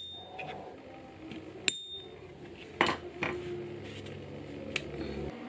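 Metal pricking iron (stitching chisel) struck with a mallet to punch stitching holes through leather on a wooden stump: four sharp, irregularly spaced strikes, each with a short metallic ring.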